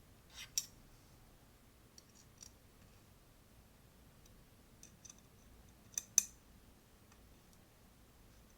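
Scattered light metal clicks of an Allen wrench tightening small screws on an air rifle's top rail, the loudest pair about six seconds in.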